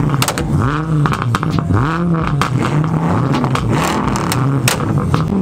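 Audi R8 engine being revved in repeated blips, its pitch rising and falling roughly once a second, with sharp pops from the exhaust.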